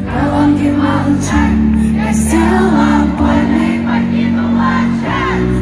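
Loud live concert music: sustained low chords that change every second or so, with voices singing and shouting over them.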